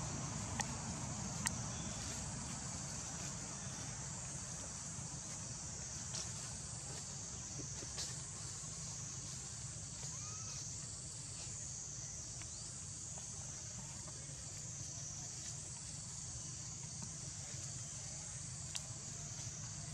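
Outdoor insects droning steadily at a high pitch, swelling and fading in slow waves during the second half, over a low steady rumble, with a few faint clicks.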